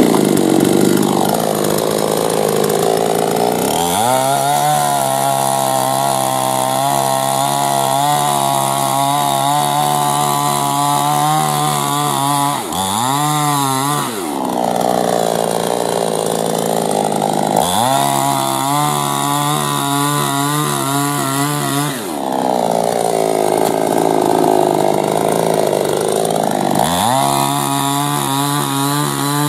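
Star Kut SKE-CS 22 chainsaw running at high throttle. Three times (about 4, 18 and 27 seconds in) its pitch drops and holds steady as the chain cuts through a log, and between the cuts it revs freely at a higher pitch.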